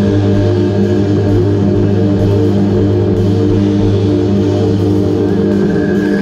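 Live drum kit played with a eurorack modular synth, whose notes are driven by the drums' piezo pickups through a Sonicsmith Convertor E1. A steady low synth drone with shifting overtones carries the music, the drum hits sit softly under it, and a higher synth tone slides up near the end.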